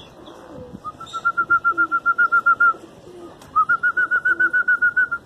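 A bird calling loudly in two bouts of rapid, evenly repeated high notes, about eight a second, each bout lasting about two seconds and opening with a short upward slide.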